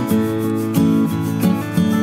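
Background music: strummed and plucked acoustic guitar with a steady rhythm.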